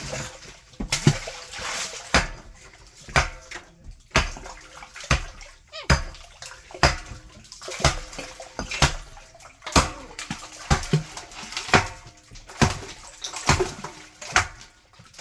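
Repeated heavy strikes on concrete, about one a second, as the slab over an old well is broken up.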